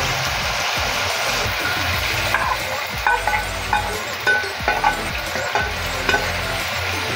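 Ground beef with diced carrots and potatoes sizzling steadily in a frying pan. From about two and a half seconds in, a spoon scrapes and knocks against the pan as diced red bell pepper is pushed in from a plate and stirred.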